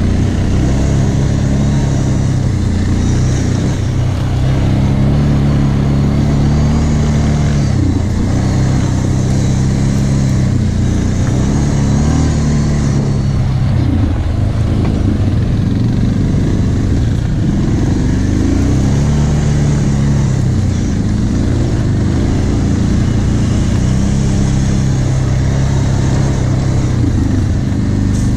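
Quad bike (ATV) engine running close to the microphone, its pitch rising and falling every few seconds as the throttle is opened and eased off while riding a dirt trail.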